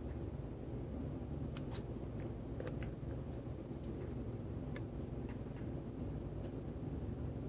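Irregular light clicks of a small hand tool handling tiny watch pins and parts, about ten scattered through, over a steady low hum.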